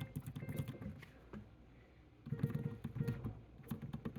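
Clacking of an electric piano's keys and pedal being worked. A faint piano note dies away in the first second, then, after a lull, a run of quick clacks follows about two seconds in.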